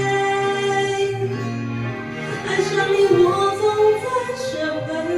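A female voice singing a slow pop ballad over a backing track, holding long notes that waver in pitch.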